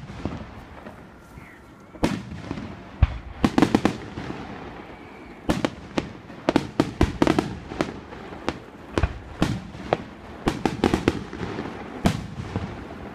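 Aerial fireworks shells bursting overhead: a string of sharp bangs at irregular intervals, several coming in quick runs, each trailing off in an echo.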